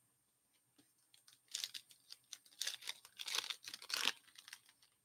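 Foil wrapper of a hockey card pack being torn open and crinkled by hand, in a run of crackling bursts from about a second and a half in until about four seconds in.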